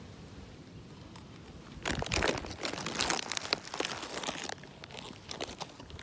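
Crinkling and crunching of pretzels and their plastic bag being handled, starting about two seconds in and thinning to scattered light clicks near the end.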